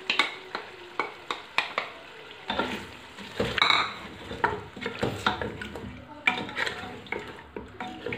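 Wooden spoon scraping yogurt from a bowl into a pressure cooker with a few sharp taps. About two and a half seconds in, it starts stirring the curry, knocking and scraping against the pot while the curry sizzles.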